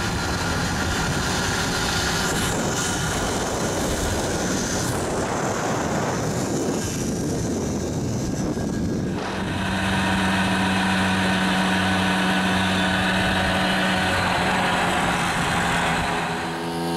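Small two-stroke engines of vintage 50cc mopeds running at riding speed, first under a heavy rush of wind and road noise. About nine seconds in this gives way to a steady, clearly pitched engine note that holds until a change near the end.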